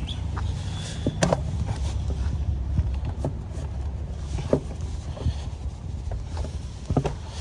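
Scattered clicks and knocks of tools and car parts being handled, over a steady low rumble.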